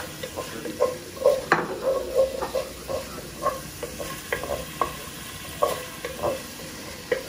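Spoon stirring ginger-garlic paste frying in oil in a cooking pot: short, irregular scraping knocks against the pot over a steady sizzle.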